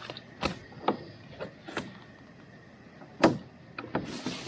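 A series of sharp knocks and clunks, the loudest about three seconds in, then a brief rustle near the end.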